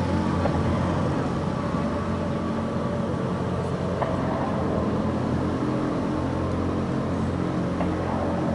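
A steady low mechanical hum with a rumble under it, unchanging throughout.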